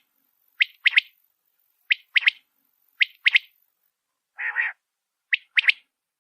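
Desert quail calling: a sharp three-note phrase, one short note then two quick ones, repeated four times at about one a second. A single harsher, lower call comes about four and a half seconds in.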